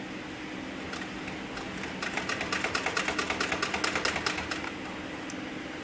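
Hightex heavy-duty webbing sewing machine stitching webbing in one run of about two and a half seconds near the middle, a rapid even ticking of about eight to nine stitches a second. A steady motor hum and a few single clicks run under it.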